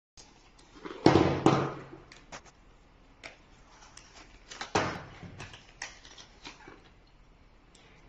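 A small cardboard box being opened and handled, with rustling and scattered clicks as an air filter-regulator and its packing are taken out and set down on a table. The loudest rustling comes about a second in and again just before five seconds.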